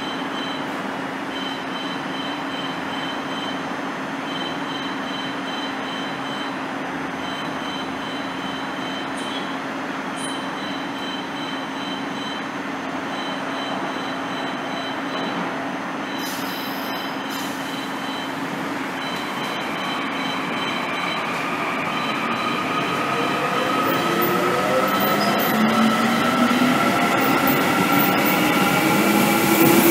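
Korail 361000-series electric commuter train standing with a steady electrical hum and a repeated high beeping, then pulling away about two-thirds of the way through. As it accelerates, its traction motors give a whine of several tones rising together in pitch and getting louder.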